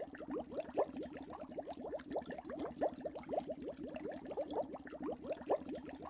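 Many animals calling at once: a dense, unbroken chatter of short, quick calls, several a second and overlapping.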